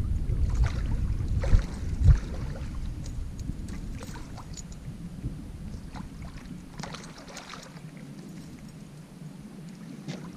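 Wind rumbling on the microphone aboard a small fishing boat on a river. The rumble is strong for the first two or three seconds and then dies down, with scattered light clicks and splashy crackles throughout.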